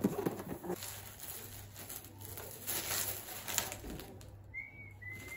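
Cardboard box of champagne flutes being handled and opened, with rustling and light knocks as a flute is taken out. A bird gives a couple of short high calls near the end.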